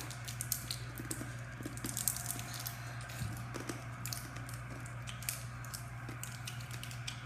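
Warheads sour-candy wrappers being unwrapped by hand, crinkling and crackling in quick, irregular clicks, over a steady low hum.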